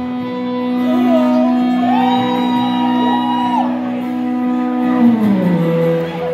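Live band's electric guitars holding sustained notes after the drums drop out. A higher line bends up and down, and a low held note slides down about five seconds in.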